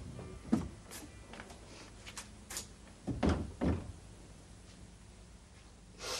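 Wooden door being handled: a sharp knock about half a second in and a few light clicks, then two heavier thumps about half a second apart a little after three seconds in, and another thump at the very end.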